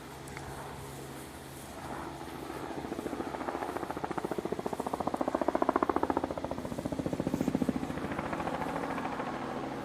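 A passing vehicle with a rapid, even pulsing beat, growing louder to a peak about halfway through and then fading away.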